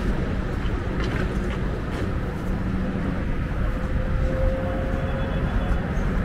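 Steady rumble of road traffic in an outdoor city street, with no single event standing out.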